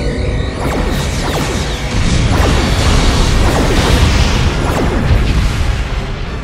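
Space-battle sound effects: a dense, loud mix of crashing and impacts with many falling whooshes, swelling about two seconds in.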